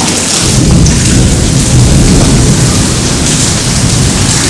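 Heavy rain pouring in a thunderstorm, with a deep rumble underneath throughout.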